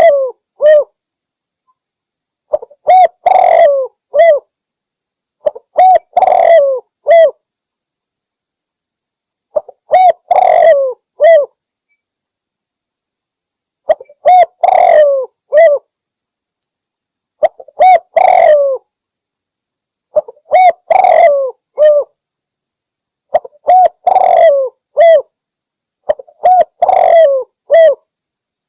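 Spotted dove (Javan derkuku) cooing: a phrase of a few short coos around a longer, bending coo, repeated about every three to four seconds, nine times.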